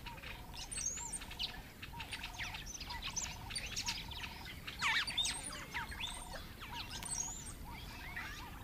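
Wild birds chirping and calling: quick high chirps and sweeping whistles over a lower call repeated about twice a second.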